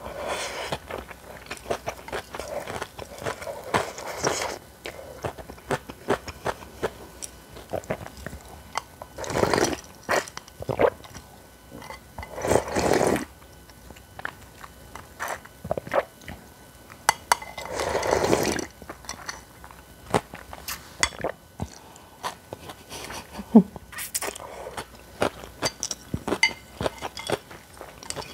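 Close-miked eating sounds of naengmyeon (Korean cold noodles) with crunchy kimchi: steady crunching and chewing full of small clicks, broken by about four long noisy slurps lasting a second or so each.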